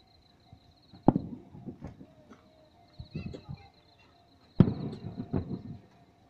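Two distant aerial firework shells bursting, about a second in and again about three and a half seconds later, each a sharp bang trailing off in a rumble of smaller crackles and echoes.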